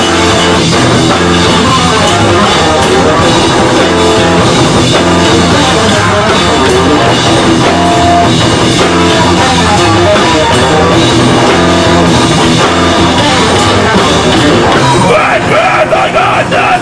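Live rock band playing: electric guitar, bass guitar and drum kit. Screamed vocals come in near the end.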